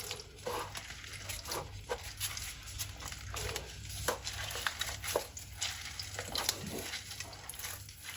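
Juice being pressed out of a peeled orange by hand: faint wet squishing with scattered small clicks, over a low steady hum.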